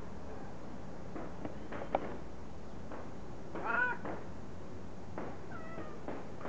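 Domestic cat meowing once, a rising-then-falling meow a little past halfway, with a fainter call near the end. A single sharp click sounds about two seconds in.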